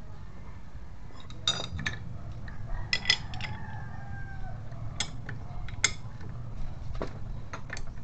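Steel hand tools clinking against a scooter's CVT pulley and clutch assembly as it is held and fitted. About ten sharp, irregular clinks come in small clusters, the loudest around three and six seconds in.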